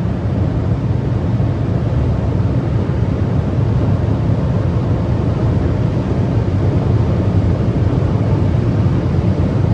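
Steady, loud cabin drone of a Honda City 1.0 Turbo cruising flat out at about 200 km/h: the three-cylinder turbo engine is held near 5,500 rpm, mixed with road and wind noise.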